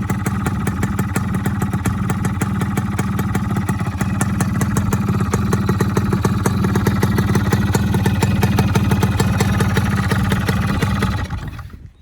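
Modified racing Yamaha F1ZR two-stroke single-cylinder engine running with a steady, pulsing "snoring" (ngorok) exhaust note. It gets a little louder partway through and dies away near the end.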